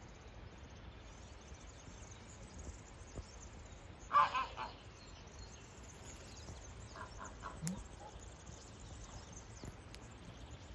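A single short, loud animal call about four seconds in, followed by a few fainter short calls around seven seconds, over a quiet outdoor background.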